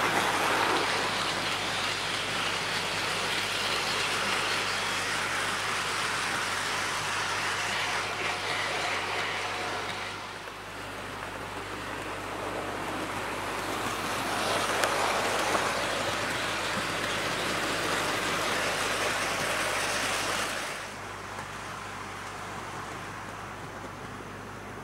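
Heljan Class 58 model diesel locomotive and its wagons running on the layout's track, a steady whirring rumble of motor and wheels on rail. It is louder twice as the train passes close by and drops away about ten seconds in and again after about twenty seconds. A low steady hum lies underneath.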